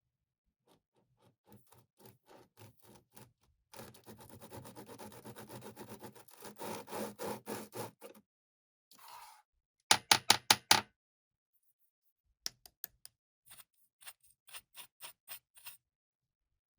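Close-up handling and crafting noises: a run of small clicks and taps, a few seconds of dense rasping scrape in the middle, then a quick cluster of about five loud sharp clicks followed by lighter scattered clicks.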